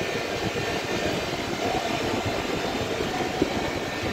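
Steady mechanical rumble and hum of running machinery, with one sharp click about three and a half seconds in.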